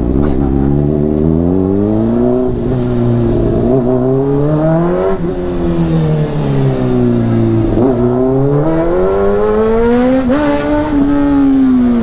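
Honda CBR600RR's inline-four engine through a Yoshimura exhaust, its pitch rising for about five seconds as the bike accelerates, falling away for a few seconds as the throttle is eased, then rising again and holding near the end.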